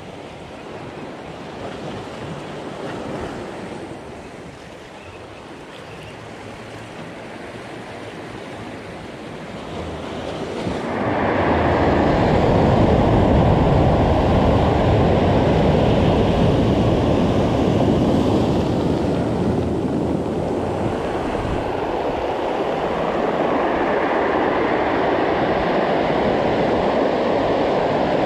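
Sea surf, quieter at first. About ten seconds in it jumps to loud breaking waves: big close-out waves crashing and their whitewater washing up a pebble beach.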